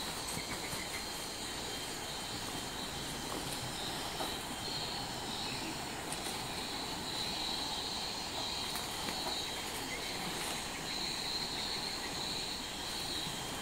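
Steady, high-pitched chirring of forest insects, a continuous drone that swells and eases in strength.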